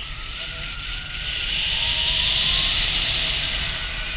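Rushing wind on the camera's microphone in flight, swelling about a second and a half in and easing off near the end, with faint wavering tones behind it.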